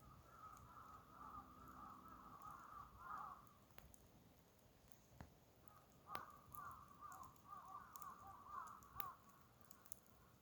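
Faint bird calls in two stretches of about three seconds each. A few sharp single crackles from the burning campfire wood come through between and during them.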